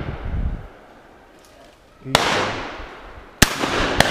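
Shotgun shots at driven pheasants: one bang about two seconds in and two sharper, closer bangs near the end, each trailing off in a long echo through the woods.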